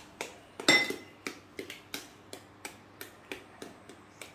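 Metal spoon tapping on an eggshell to crack it: a run of light clicks about three a second, with one louder, briefly ringing clink just under a second in.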